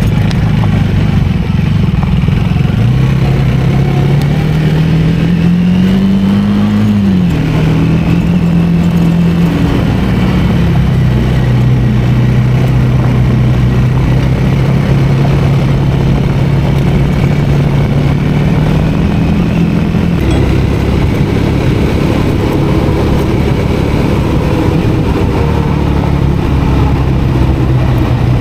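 Triumph 400 motorcycle's single-cylinder engine running under way. The note climbs and then drops sharply at gear changes about seven and ten seconds in, holds steady at cruise, and rises again near the end.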